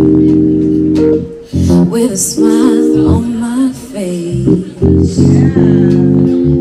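Live song: a woman singing into a microphone over held electric keyboard chords that change every second or so.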